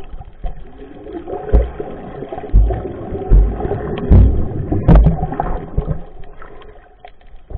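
Muffled underwater sound picked up by a camera in its waterproof housing: water churning and bubbling around swimmers, with several dull low thumps between about one and a half and five seconds in.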